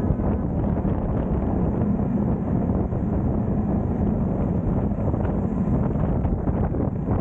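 Wind buffeting the microphone over a steady engine hum and road noise from a moving vehicle.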